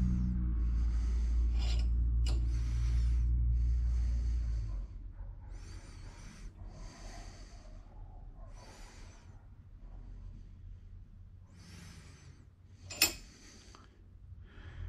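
A man breathing close to the microphone: a run of breaths about a second long each, through the nose, as he slowly works a brake caliper piston spreader. A low steady hum sits underneath and cuts off about five seconds in. One sharp click near the end is the loudest sound.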